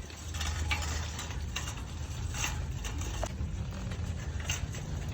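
A steady low rumble with irregular clicking and rattling throughout.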